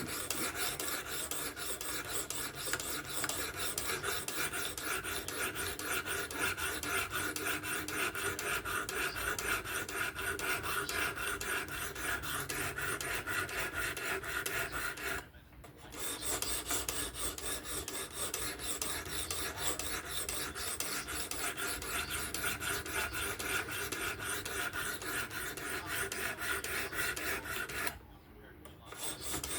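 Knife blade of S30V steel stroked back and forth along a coarse 220-grit stone on a fixed-angle sharpener, a continuous rasping scrape as the bevel is cut at the coarse stage. The strokes stop briefly twice, about halfway through and near the end.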